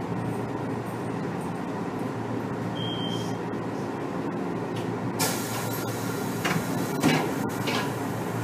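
Standing Kotoden 1300-series electric train car with its onboard equipment humming steadily and a brief high beep about three seconds in. About five seconds in, a sudden hiss of compressed air sets in, followed by a few sharp knocks as the pneumatic sliding doors work, the loudest near the end.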